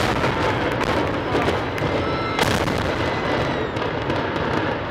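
Texas Stadium imploding: a continuous low rumble and crackle of the concrete dome and stands collapsing, with sharp cracks right at the start and again about two and a half seconds in.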